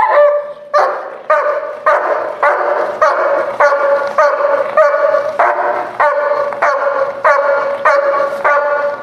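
German Shepherd protection dog barking in a rapid, even string, about two barks a second: the guarding alert bark it gives on the 'watch' command while holding its place at the handler's side, facing a decoy.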